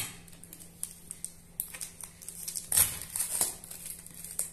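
Sealing tape being peeled off a plastic takeaway container lid, with short rips, crinkles and small plastic clicks; the loudest rips come a little under three seconds in.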